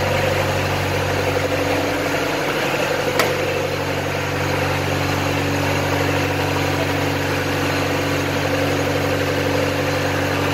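MJ6126TZ sliding table panel saw running free, not cutting: a steady motor and blade hum, with a sharp click about three seconds in.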